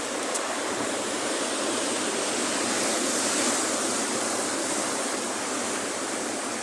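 Ocean surf breaking over a low rock reef and washing across a shallow rock platform: a steady rush of white water that swells a little about halfway through.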